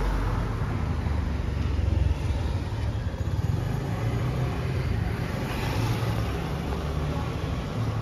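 Street traffic noise: a car driving past close by, its low engine and tyre rumble loudest in the first two seconds, then a steady background of passing road traffic.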